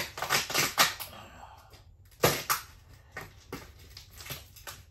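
Cardboard shipping box being handled, with packing material: a series of sharp knocks and crackles, the loudest a couple near the start and two more a little past two seconds in.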